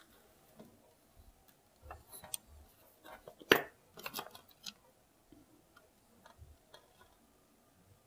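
Faint, scattered clicks and taps of hands handling an opened plastic hair dryer housing and its wiring, with one sharper click about three and a half seconds in.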